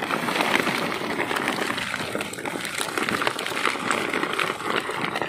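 Dense, irregular crackling and rustling of a netted catch of fish being handled, with the net and fish scraping and flapping together.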